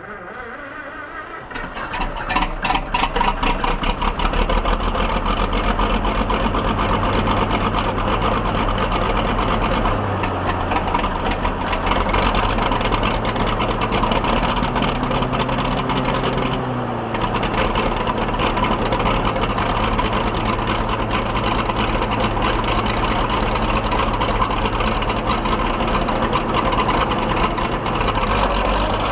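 1953 International Harvester TD20 bulldozer's 750 cubic inch straight-six engine firing up on a cold start after sitting all summer, building over the first two seconds to a steady, loud run. Its note shifts about ten seconds in and dips briefly at about seventeen seconds before it settles again.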